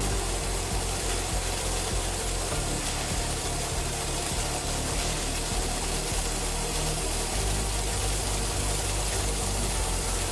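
Steady steam hiss from an All American 921 pressure canner nearing 10 psi, its weighted regulator not yet rocking, over a steady low hum. The hiss grows louder near the end.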